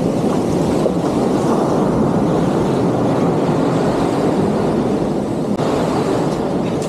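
Waves breaking and foamy surf washing up the sand close by, a steady rushing noise with no distinct tones.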